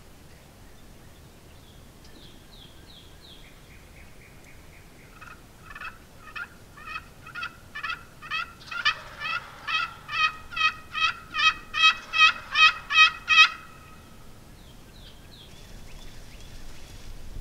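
Wild turkey calling in a long series of evenly spaced yelps, roughly two to three a second, that build steadily louder and then stop. A few faint, short calls come before and after the series.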